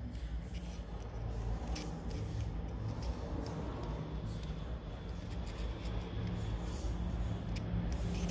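A hobby knife and a thin metal pick scratching and clicking against the bearing inside a Traxxas TRX-4 portal axle housing, in small irregular ticks over a steady low hum.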